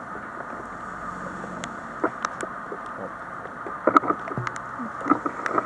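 Footsteps crunching over rubbish and debris, with scattered irregular knocks and crackles that come thicker about four seconds in, over a steady rushing background noise.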